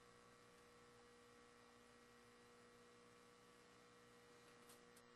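Near silence: a faint, steady electrical hum over light hiss, with a couple of faint clicks near the end.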